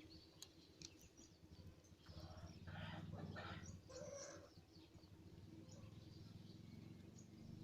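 Ducks calling, a cluster of rough quacks from about two to four and a half seconds in, with a few faint short chirps before it and a steady low hum underneath.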